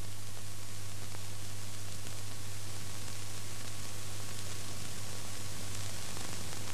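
Steady hiss with a low, even hum underneath and no other sound: the background noise of an old film soundtrack.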